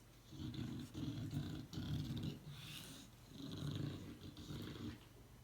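English bulldog breathing heavily and snuffling in rough, congested-sounding breaths, in a run of bursts, a short pause about two and a half seconds in, then another run.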